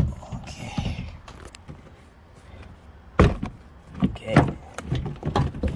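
Plastic retaining clips of a Nissan Altima rear door trim panel snapping loose as the panel is pried off by hand: a sharp snap about three seconds in, followed by a few smaller knocks and rattles of the loosened panel.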